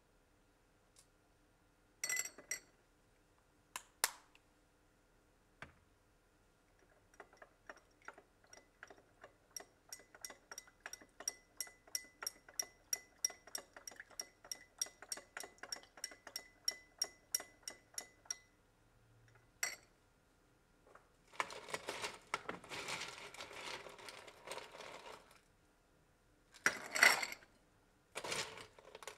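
Bar tools and glassware clinking while a cocktail is made. A couple of sharp clinks come first, then a long run of ringing metallic ticks at about three a second. About two-thirds of the way through there are some four seconds of dense rattling, and near the end two loud clanks.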